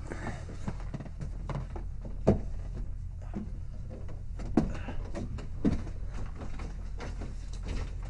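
Footsteps thudding at a walking pace, roughly one a second, the loudest about two seconds in and again near the middle, over a steady low hum.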